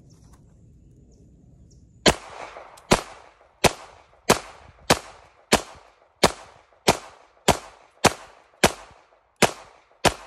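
Stoeger STR-9F 9mm pistol firing a steady string of about thirteen shots, roughly one every two-thirds of a second, beginning about two seconds in. Each sharp report trails off in a short echo.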